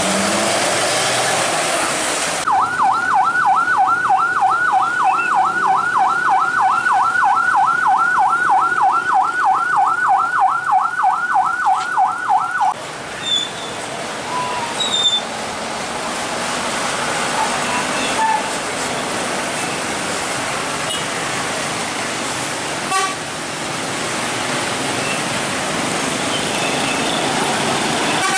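Electronic siren in a fast rising-and-falling yelp, about three sweeps a second. It starts a couple of seconds in and cuts off abruptly about ten seconds later. Steady road traffic noise fills the rest.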